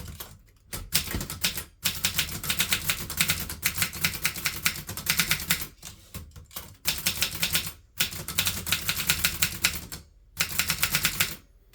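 Typing on a 1961 Groma Kolibri N portable manual typewriter: rapid runs of key strikes, type bars hitting the platen, broken by a few short pauses.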